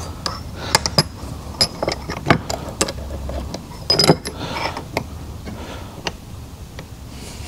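Irregular light metallic clicks and clinks of small steel parts being handled on a workbench, with the loudest cluster about four seconds in: valve stems being set into a gauge setting fixture to zero a valve-guide gauge.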